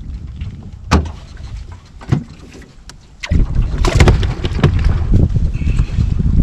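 Wind rumbling on the microphone and water slapping against the hull of an aluminium jon boat, with two sharp knocks in the first half; about three seconds in the wind rumble becomes much louder.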